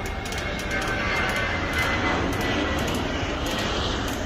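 Steady engine noise with a thin, high whine running through it, growing a little louder about a second in.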